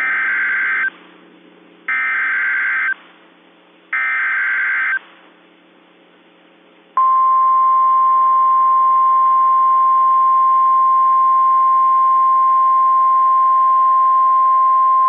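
Emergency Alert System tones as broadcast on NOAA Weather Radio: three one-second bursts of SAME header data tones about a second apart, then, after a short pause, a single steady 1050 Hz warning alarm tone held for about nine seconds. It is the signal that a tornado warning is about to be read.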